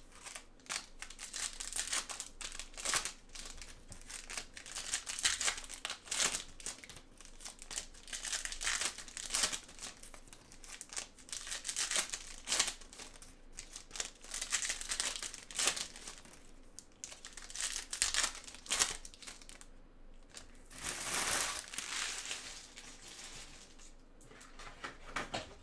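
Foil trading-card pack wrappers crinkling and tearing as they are peeled open by gloved hands. The crackling is irregular and continuous, with a longer, denser rustle near the end.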